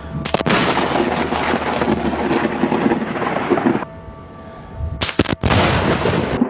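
Close thunder: a sudden sharp crack a moment in, followed by a loud rumble with rain noise for a few seconds. A second sharp crack comes about five seconds in.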